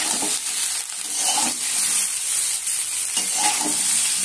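Vegetables frying in oil in a metal kadai, sizzling steadily, while a metal spatula stirs and scrapes through them with a few irregular strokes. It is the sautéing stage on medium flame after ginger-cumin paste has been added.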